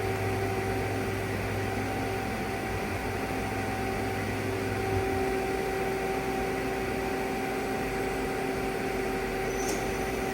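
Doosan Puma 2600Y CNC lathe running with a steady machine hum. A low part of the hum drops out about halfway through, and near the end a brief click is followed by a faint high whine.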